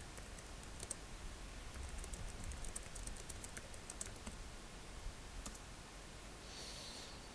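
Faint typing on a computer keyboard: a quick run of soft key clicks about two to four seconds in, with a few single clicks around it and a short soft rustle near the end.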